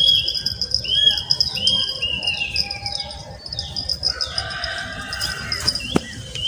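Birds calling: a repeated arched chirp about three times in the first two seconds, then a few falling whistles and lower calls, over a steady high whine.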